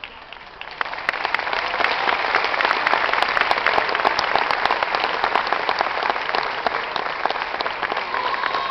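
A crowd applauding, many hands clapping at once. It swells to full strength about a second in and then holds steady.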